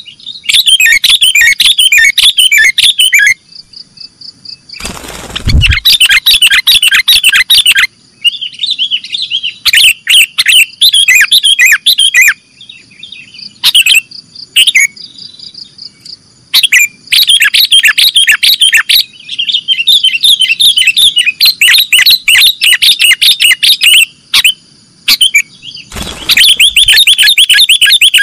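Sooty-headed bulbul (kutilang) singing in the 'nggaruda' style: loud, rapid runs of chirping notes in bursts of a second or several, broken by short pauses.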